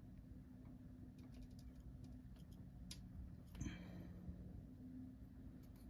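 Faint small clicks and handling noise from a crown insert being twisted into an airsoft nozzle, over a low steady hum. One slightly louder click comes about three and a half seconds in.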